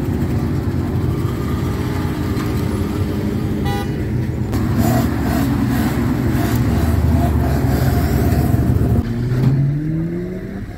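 Engines of vintage lorries and a pickup truck running as they drive slowly past one after another. A short horn toot about four seconds in, and an engine revving up near the end as a vehicle pulls away.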